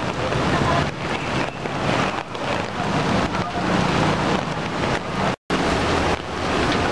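Steady rush of muddy floodwater with wind noise on the microphone. The sound cuts out for a moment about five and a half seconds in, then resumes.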